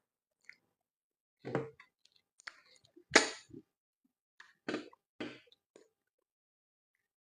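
Close-up eating sounds of a mouthful of pounded yam with slimy ogbono soup: about half a dozen short, wet mouth smacks and chews with pauses between them, the loudest about three seconds in.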